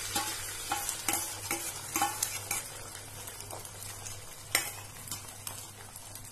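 Beaten egg with onion and chilli sizzling in hot oil in a non-stick frying pan as the omelette sets, the hiss slowly easing. A run of light clicks comes in the first couple of seconds, and a single sharp knock about four and a half seconds in.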